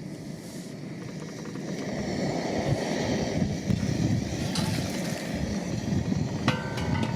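Portable propane heater-stove burner running with a rough flame roar that grows louder about two seconds in. A few light metallic clicks come near the end.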